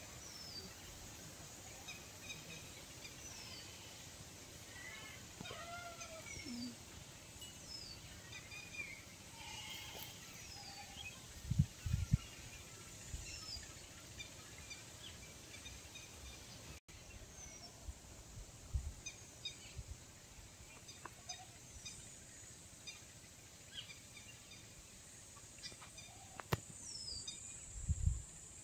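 Small birds calling: repeated short, high chirps that fall in pitch, every second or two, with other chirping calls mixed in over faint steady background noise. A few low thuds come near the middle and near the end.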